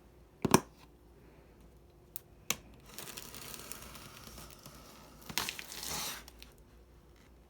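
Handling noises: a sharp knock, a short click, then crinkling rustle, with the loudest rustle a little past the middle.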